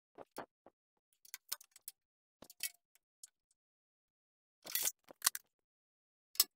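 Scattered light clicks and taps of small hand tools being handled while holes are marked out on a lathe's sheet-metal backsplash, with a brief scratchy sound about five seconds in and a sharper click near the end.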